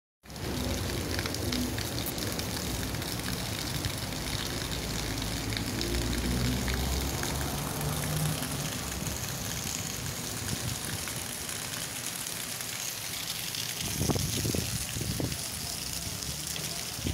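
Steady rain falling on a cobblestone street and rooftops, with a car driving past on the wet cobbles about six to eight seconds in and a couple of brief low bumps near the end.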